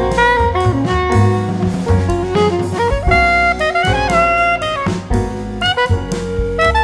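Background music: an instrumental piece with a melody line of held and stepping notes over a bass line and a drum beat.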